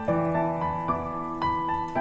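Background music: a gentle piano-style keyboard melody, new notes struck every half second or so and left to ring.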